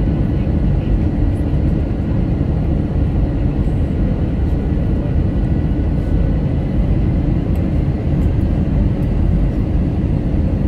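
Steady cabin noise inside a Spirit Airlines Airbus A320-family jet on final approach: a loud, even rumble of jet engines and airflow, with a faint whine that fades out about four seconds in.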